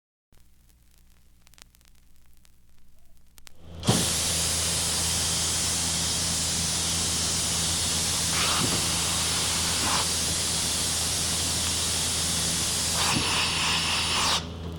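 Faint crackle, then about four seconds in a loud, steady hiss starts over a low, even hum, and drops away shortly before the end.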